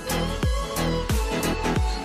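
Electronic pop music with a steady beat: deep kick-drum hits that drop in pitch, about three every two seconds, under held synth notes.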